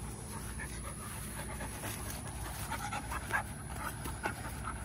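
A 10-month-old poodle panting in quick, irregular breaths, worked up and excited.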